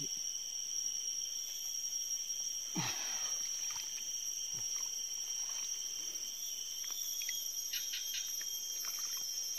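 Insects shrilling steadily at a high, even pitch, with a few faint knocks and rustles.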